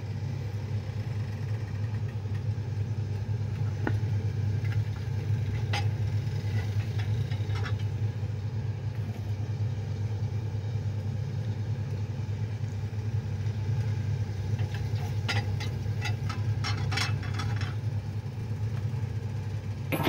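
A steady low mechanical hum runs throughout, with a few small clicks and taps of a pipette and glass jar being handled, grouped mostly about three quarters of the way through.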